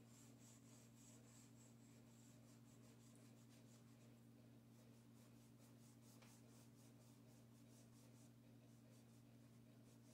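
Faint, quickly repeated strokes of a chalk pastel stick and a fingertip rubbing on paper as the colour is blended in, over a steady low hum.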